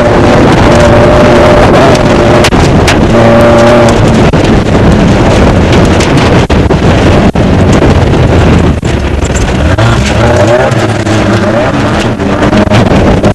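Off-road desert race car's engine running hard at speed, heard from inside the car, with frequent sharp knocks and rattles from the chassis and suspension. The engine note holds steady at first, then drops about nine seconds in and wavers up and down.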